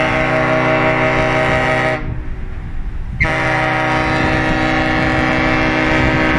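Hurtigruten coastal ship's horn sounding long, steady blasts as two ships meet, the customary greeting between passing ships: one blast ends about two seconds in, and after a short gap a second long blast starts and holds.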